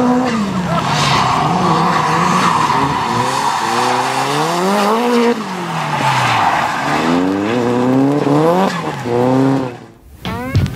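Nissan Silvia S14 drift car's engine revving up and down several times as it slides through the corners, with tyre noise under it. The engine sound cuts off near the end and music begins.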